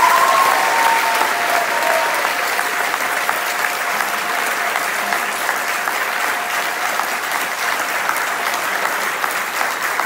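Audience applauding, a long round of clapping that eases off slightly toward the end.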